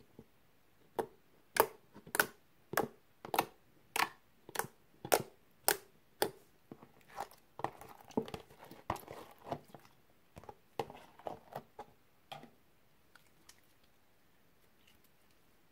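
Clear slime handled in a plastic tub, making about ten sharp, evenly spaced pops, roughly one every half second. It then gives a denser run of softer wet crackling and squishing as it is pulled from the tub and folded around pieces of pencil lip balm, and it goes quiet near the end.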